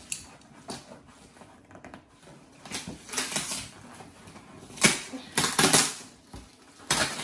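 Brown packing tape being peeled and ripped off a cardboard box in several short rips, the loudest just under five seconds in, with small taps and scrapes of the cardboard in between.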